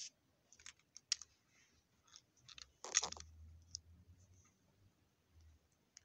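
Small plastic clicks and handling noises from a battery-powered toy train's parts being worked by hand, with one louder snap about three seconds in.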